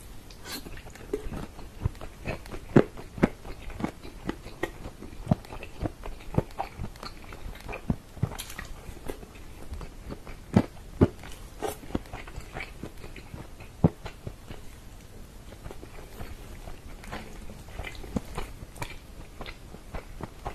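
Close-miked chewing and biting of tender pressure-cooked bone-in chicken in tomato sauce: irregular wet mouth clicks and smacks, with a few sharper, louder smacks scattered through.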